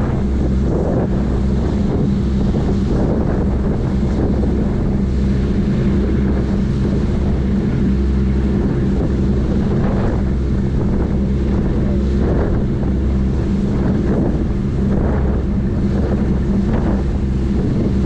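Sightseeing boat's engines running with a steady low drone, with wind buffeting the microphone in irregular gusts and the churning wake hissing behind the stern.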